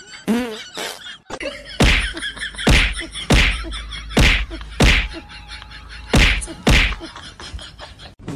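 Televised tennis rally: sharp whacks of the ball being struck back and forth, seven in all, beginning about two seconds in.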